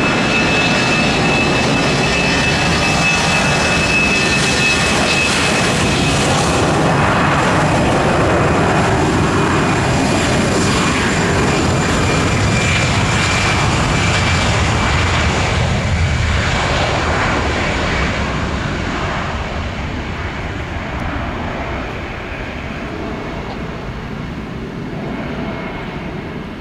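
A passenger airliner passing close on the runway, its engines running loud with a steady high whine over a heavy rumble; the noise holds, then slowly fades after about 18 seconds as the aircraft moves away.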